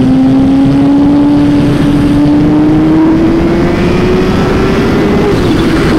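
Kawasaki Ninja H2's supercharged inline-four engine pulling hard in third gear, its pitch climbing steadily for about five seconds before the throttle eases and the pitch drops, over heavy wind rush.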